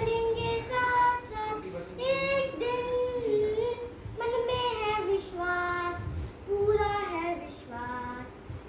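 A young girl singing a song solo and unaccompanied, in long held notes that slide from one pitch to the next, with short breaths between phrases.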